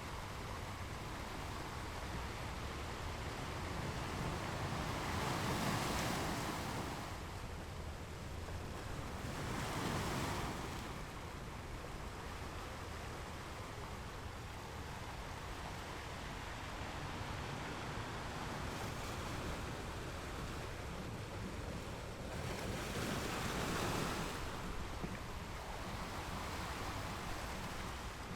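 Ocean waves breaking against rocks: a steady wash of surf with three louder waves about a fifth, a third and four-fifths of the way through.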